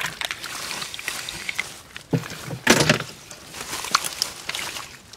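Hands rummaging through wet grass stems and mud in shallow water, making a steady rustling, squelching noise. There are short clicks throughout and a couple of louder moments about two and three seconds in.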